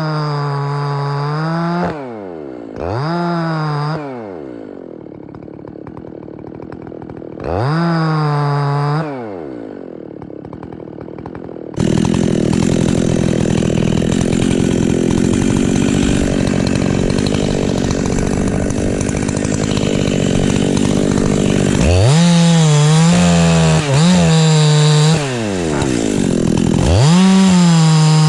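Two-stroke chainsaw with a ported muffler revving high and dropping back to idle several times, then cutting into wood under load for about ten seconds, then blipping the throttle and revving high again.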